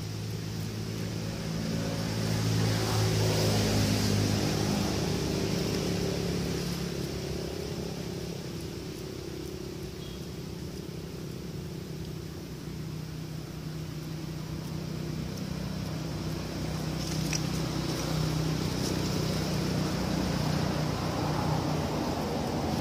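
A motor vehicle's engine running as it passes, swelling a few seconds in and again near the end, over a steady high hiss.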